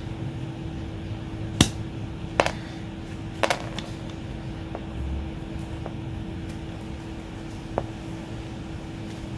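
Cutting jaws of a Toho wire stripper plier biting through a thick 3x25 power cable: a few sharp snaps as the copper strands and insulation give, three in the first four seconds (the third a quick double) and one more later, over a steady low hum.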